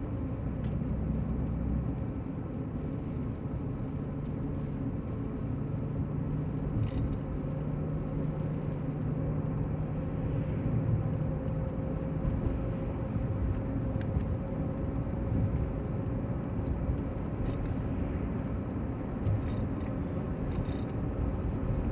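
A car driving along, with steady engine and road rumble.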